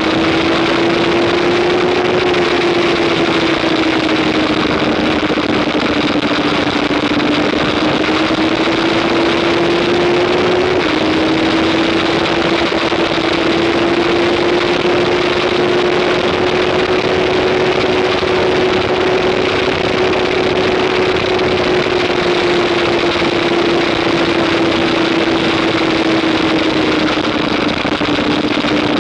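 2015 Yamaha R3's 321 cc parallel-twin engine running hard at speed, its tone drifting gently up and down with a sudden small step about eleven seconds in, over a constant rush of wind noise.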